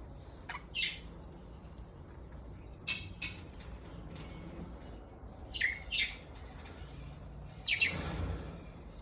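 Pet birds giving a few short chirps and squawks, with a sharp click and a brief flutter of wings near the end.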